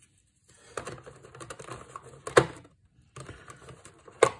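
Hard plastic clicking and rattling as plastic board-game miniatures are handled and shifted in a plastic tray insert, with two sharp knocks standing out, one about halfway through and one near the end.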